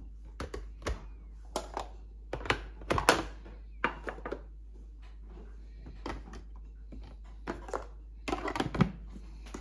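A string of irregular light clicks and knocks, objects being handled and set down, over a steady low hum.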